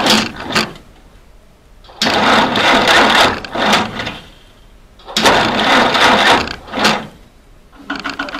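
Starter cranking the 1952 M38A1 Jeep's four-cylinder F-head engine in bursts of about two seconds, one ending about half a second in and two more after it, without the engine catching. It turns over on a weakly charged battery.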